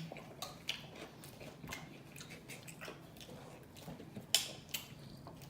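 Close-up mouth sounds of eating fried chicken: chewing and wet lip-smacking with scattered short, sharp clicks. The loudest pair comes about four and a half seconds in.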